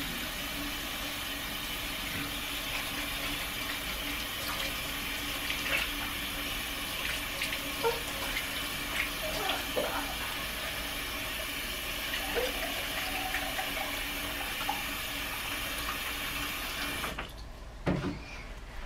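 Kitchen tap running steadily into a sink, with a few light clinks, shut off near the end.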